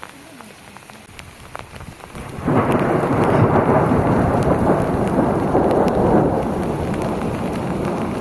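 Steady rain with scattered drips. About two and a half seconds in, a long roll of thunder starts suddenly, loud, and rumbles on, easing slightly near the end.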